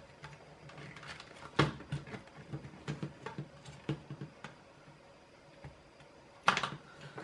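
Light, scattered clicks and taps of a plastic soap dispenser housing being handled and turned, with a sharper knock about one and a half seconds in and a brief cluster of knocks near the end.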